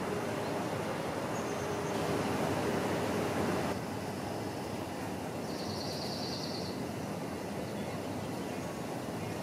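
Steady outdoor background noise: an even rushing hiss with a faint hum that stops a little under four seconds in. A short, fast-pulsed high trill sounds about six seconds in.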